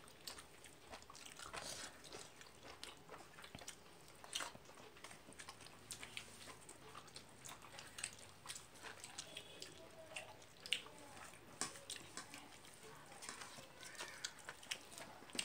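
Faint mouth sounds of someone eating rice by hand: chewing and lip smacks, with scattered small wet clicks as fingers mix the rice on a steel plate.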